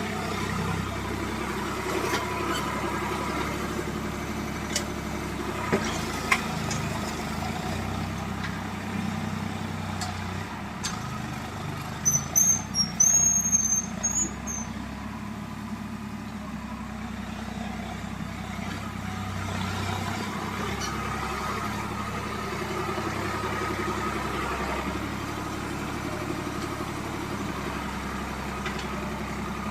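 Tractor engine running steadily under load while pulling a cultivator, with a few sharp clicks and knocks. About twelve seconds in, a run of loud high-pitched chirps lasts about two seconds.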